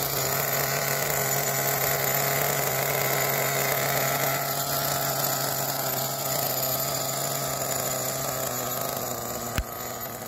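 Small nitro-fuel RC truck engine idling steadily while warming up after a start. A single sharp click sounds near the end.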